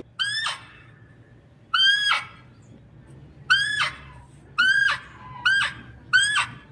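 An animal calling loudly six times, each call a short, high, held note that drops sharply at its end.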